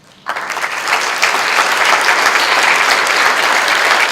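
Audience applauding, breaking out suddenly just after the start and keeping up steadily.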